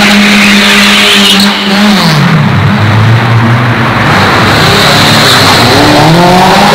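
Car engines revving hard as the cars accelerate past. A Honda Civic's engine is held at high revs, then drops in pitch about two seconds in as it shifts or passes. Near the end a Subaru Impreza's engine climbs steadily in revs as it pulls away.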